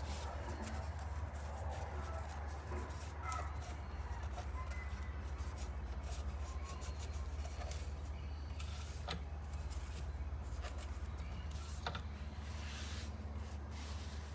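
Small pen lathe running with a steady low hum while a resin pen blank is worked, with scattered scraping and clicking from the tool or abrasive against the spinning blank.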